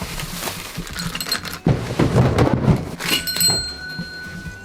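Loose plastic Lego bricks clattering and rattling as someone rummages through a pile for a piece, busiest in the middle.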